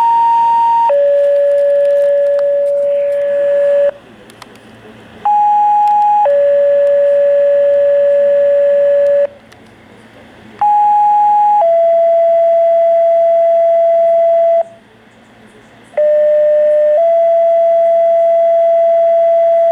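Two-tone sequential fire pager alert tones coming through a Uniden BC75XLT handheld scanner's speaker. Four tone pairs play, each a short steady tone of about a second followed at once by a longer held tone of about three seconds at a different pitch, with short gaps of radio hiss between pairs. This is a scheduled pager test that sets off volunteer firefighters' and first responders' pagers.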